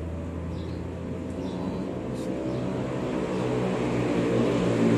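A motor vehicle engine running with a steady hum, growing louder over the last couple of seconds.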